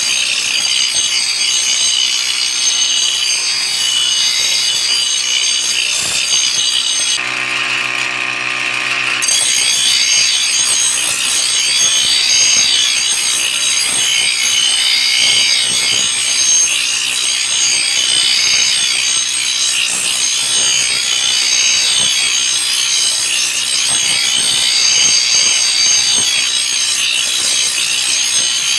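Spear blade of truck leaf-spring steel ground on a bench grinder wheel: steady grinding over the motor's hum. About seven seconds in the grinding drops out for about two seconds, leaving only the motor's hum, then resumes.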